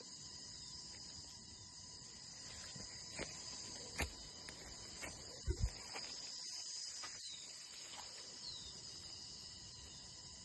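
Steady high-pitched chorus of crickets trilling, with a few sharp knocks about halfway through.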